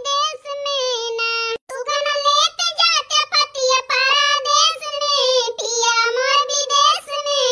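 High-pitched cartoon voice singing a weeding song, with long held, sliding notes and a short break about one and a half seconds in.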